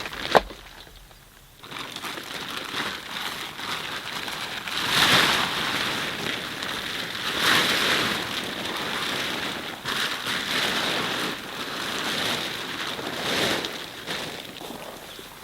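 Strong wind blowing in gusts, a hissing rush that surges and eases every few seconds. A single sharp knock sounds about half a second in, the loudest moment.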